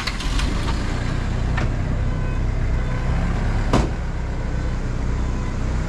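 Motor vehicle's engine running as it drives, with steady engine rumble and road noise and a single sharp knock about four seconds in.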